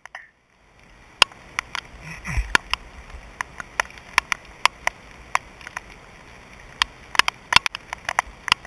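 Raindrops striking the camera housing as irregular sharp taps, several a second, over a steady hiss of rain falling on the pond.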